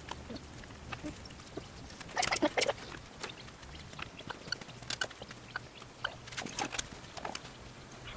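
Backyard chickens clucking, with scattered short calls and small clicks, busiest about two seconds in.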